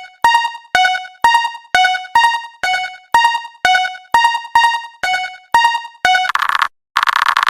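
Japanese railroad crossing warning bell ringing steadily, about two strikes a second alternating between two pitches, each strike fading quickly. Near the end the bell stops and a short, rapid fluttering tone sounds twice.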